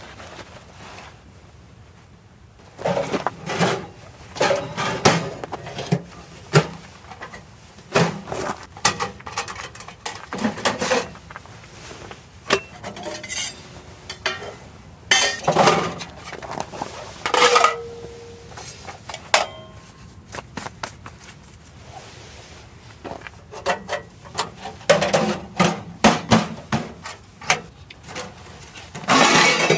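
Camping gear being handled: irregular knocks and metal clinks, starting about three seconds in and going on at an uneven pace.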